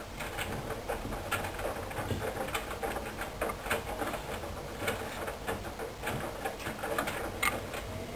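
Hoover Dynamic Wash washing machine drum turning slowly, with irregular soft knocks and patter from wet towels and tablecloths tumbling inside. The machine is redistributing an unbalanced load before its final 1200 rpm spin.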